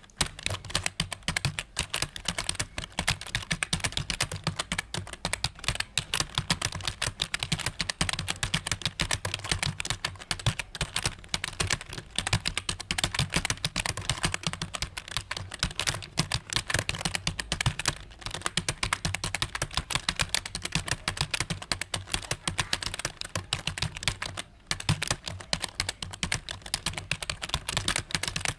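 Fast, continuous typing on a computer keyboard, a rapid stream of key clicks during a timed typing test at about 58 words a minute, with one short pause about three-quarters of the way through.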